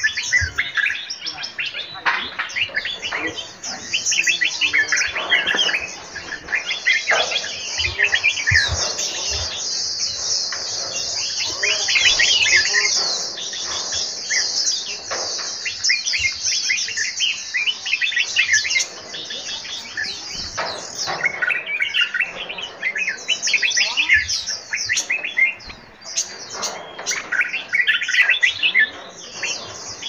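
Many cage birds in an aviary chirping and singing at once: a dense, continuous high twittering, with louder, lower song phrases that come and go.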